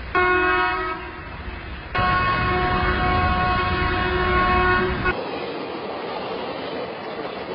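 Locomotive horn sounding a short blast, then a long blast of about three seconds, over the rumble of a train. When the horn stops, the noise of the moving train carries on.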